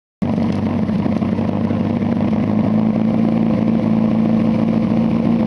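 Lancia Delta rally car's engine idling steadily at one even pitch while the car waits for the start.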